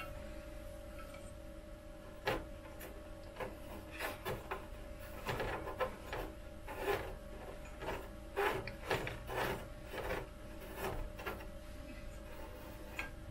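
Handling noise from the bed heater's wires being fed through the 3D printer's frame and the aluminium bed plate being moved: irregular rubbing, scraping and light knocks. A faint steady hum runs underneath.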